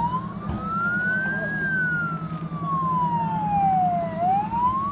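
Ambulance siren on a slow wail. Its pitch climbs for about a second and a half, falls for about two and a half seconds, and starts climbing again near the end, over a steady low hum.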